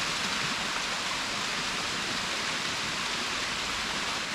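Waterfall pouring into a rock pool: a steady, even rush of falling and splashing water.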